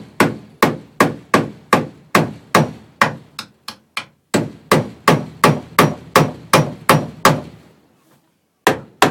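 A hammer striking a nail over and over in a quick, steady rhythm of about two or three blows a second. There is a brief break about four seconds in, and the blows stop for about a second before starting again near the end.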